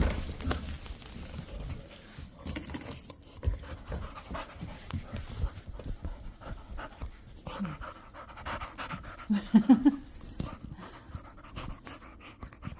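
Golden retriever puppy panting while mouthing and batting a furry cat-toy ball, whose electronic mouse squeaks in quick high chirping bursts, once about two seconds in and then again and again near the end.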